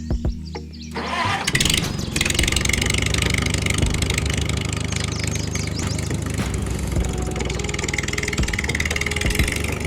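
A few sharp clicks, then about a second in an engine starts and keeps running steadily.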